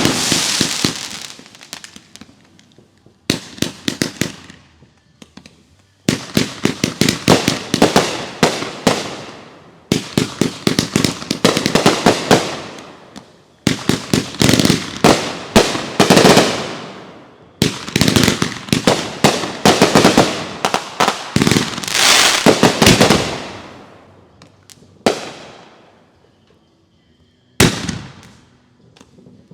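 Consumer fireworks going off in repeated volleys: each volley a rapid string of sharp bangs that tails off, with short gaps between volleys and a longer lull near the end.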